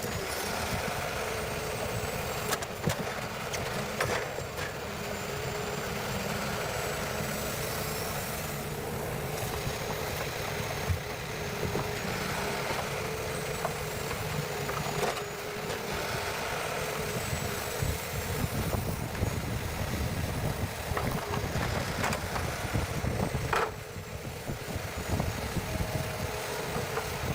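A heavy forestry machine's engine running steadily, with scattered knocks and clatter.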